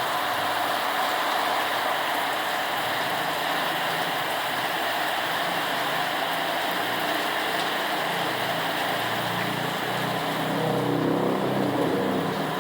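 Heavy rain falling steadily, a dense even hiss. A low hum swells about ten seconds in.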